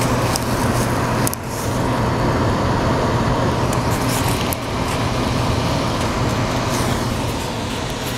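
Goodman gas furnace running: a steady blower drone with a constant low hum and air rushing in through a gaping hole at the return plenum, a return-air leak. There are a few light ticks.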